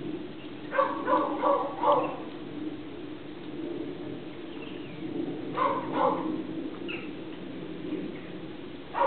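Dog barking in two short runs: a rapid series of barks about a second in, and a couple more around six seconds in.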